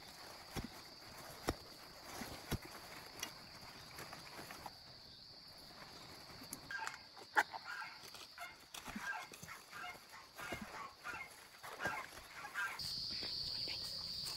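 Insects droning in the forest as one steady high tone, which grows louder near the end. Over it come sharp knocks and snaps as wild bamboo shoots are cut and broken off at the base, with rustling in the dry leaf litter.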